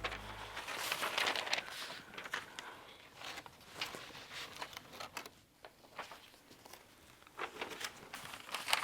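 Irregular rustling and handling noises, with scattered light clicks and knocks: papers and belongings being rummaged through in a search.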